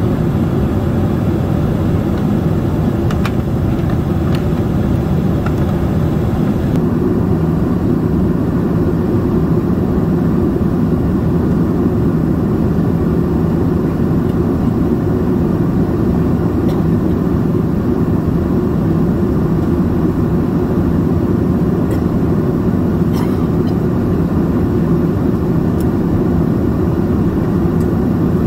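Steady in-cabin noise of a Boeing 767-400ER in cruise: its General Electric CF6-80C2 turbofans and the rush of air past the fuselage, heard from a window seat over the wing as an even, deep roar. The upper hiss eases slightly about seven seconds in.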